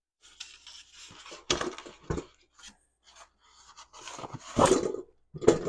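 Packaging being handled: irregular rustling, scraping and crinkling, with a few sharp knocks, the loudest near the end, as parts are taken out of the box.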